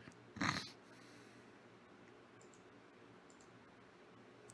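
A few faint, scattered computer mouse clicks. A brief rush of noise about half a second in is the loudest thing.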